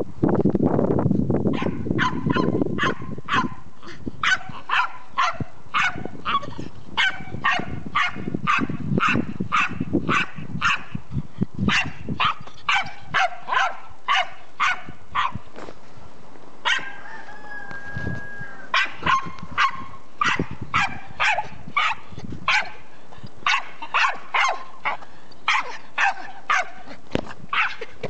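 Small dog barking in a long run of sharp, high yaps, about two to three a second, with a short break partway through.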